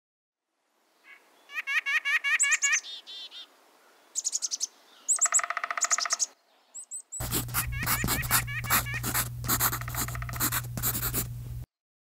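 Small songbirds calling around a winter bird feeder: short runs of repeated chirps and a nasal call in the first half. About seven seconds in, a denser, louder run of chirps starts over a steady low hum and cuts off suddenly near the end.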